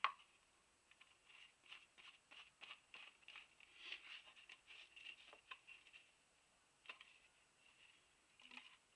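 A sharp click, then faint, irregular crinkling and light tapping of an empty plastic bottle being handled and turned over.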